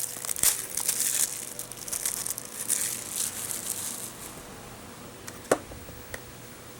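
Plastic wrapping crinkling and tearing as it is pulled off a Blu-ray case for about four seconds, then quieter, with a sharp click a little after five seconds in.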